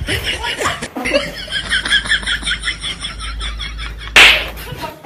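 A person laughing in a quick run of breathy bursts, then a short, loud hiss about four seconds in.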